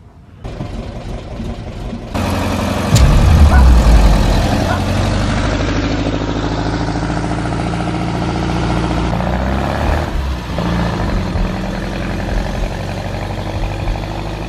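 Volkswagen Fusca (Beetle) air-cooled flat-four engine catching with a loud burst about three seconds in, then running steadily.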